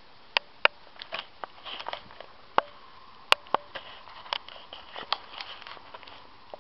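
Irregular sharp clicks and ticks, two or three a second, the loudest a little past the middle.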